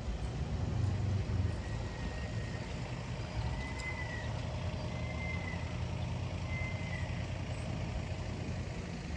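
A vehicle engine rumbling steadily, with four short high beeps about a second and a half apart in the middle, like a reversing alarm.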